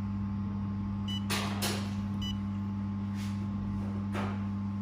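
Steady low electrical hum of a running handheld fiber laser welding machine and its water chiller, with two short high beeps from its control-panel touchscreen about a second and two seconds in as menu items are pressed.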